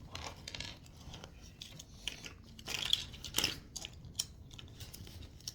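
Close handling noise: scattered clicks and short crunchy rustles, busiest about three seconds in.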